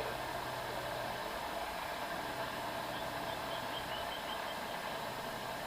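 A person snoring faintly: a low buzzing drone held for about a second and a half, then again after a short break, over a steady hiss.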